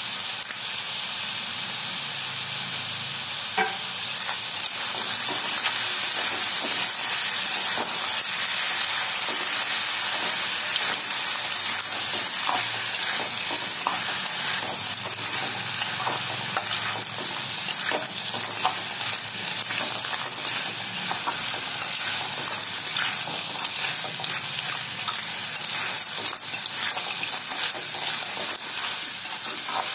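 Snails in their shells frying in hot oil with ground spice paste: a steady sizzle that grows a little louder about five seconds in. Many short clicks of the shells knock against each other and the spatula as they are stirred.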